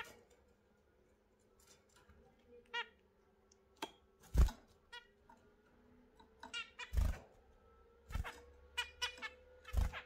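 Zebra finches giving short nasal calls, singly and in quick clusters. Several dull thumps come in between, the loudest about four seconds in, as birds land on and hop about the cage perches.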